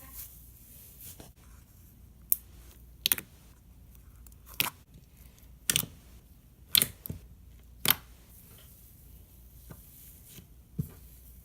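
Slime being squeezed and played with by hand, giving about seven sharp clicking pops at uneven intervals.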